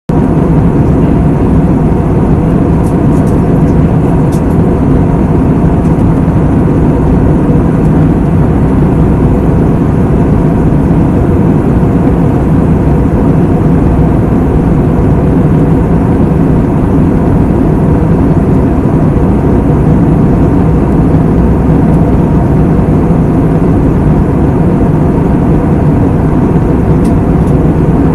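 Jet airliner cabin noise in flight: a steady drone of engines and rushing air, with a faint hum at a few fixed pitches, heard from inside the cabin.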